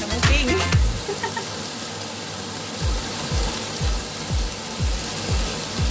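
Background dance music with a deep kick drum about twice a second; the beat drops out for a couple of seconds about a second in, then comes back. Underneath runs a steady hiss of potatoes, carrots and onion frying in a wok.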